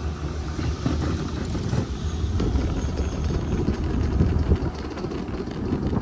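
Wind buffeting the microphone in the open air of a chairlift ride, an uneven low rumble.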